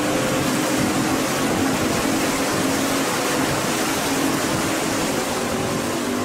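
Steady rushing noise of wind and water on a boat under way across the harbour, with a faint low hum beneath it.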